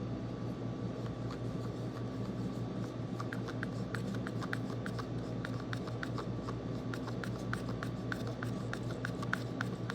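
Thick homemade slime being stirred in a bowl, giving a run of small sticky clicks and pops that start about three seconds in and come roughly three a second, over a steady low hum.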